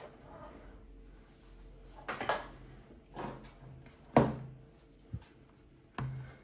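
A handful of separate knocks and thuds from hands handling hardware and cables on a desk, the loudest about four seconds in.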